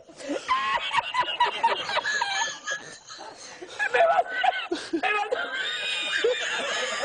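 A man laughing helplessly in high-pitched fits, with a short lull about three seconds in.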